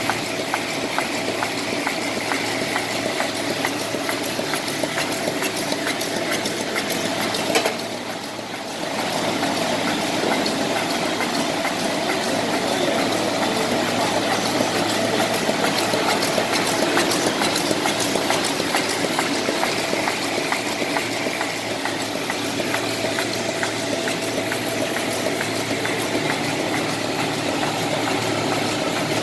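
Champion 400 envelope-making machine running: a steady, rapid mechanical clatter over a constant hum, dipping briefly about eight seconds in.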